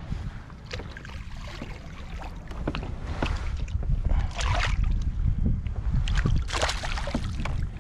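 Wind rumbling on the microphone over water, with several splashes at the kayak's side in the second half as a hand reaches into the sea to grab a hooked fish.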